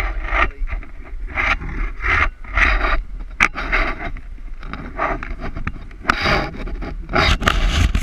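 Rope-rescue rigging handled at close range: rope and gloved hands scrape and rub against a pulley and carabiners in a run of short strokes, with a few sharp clicks.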